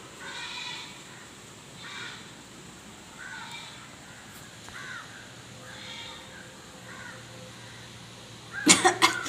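Crows cawing intermittently, with short single caws every second or so. Near the end come three loud, sharp bursts in quick succession.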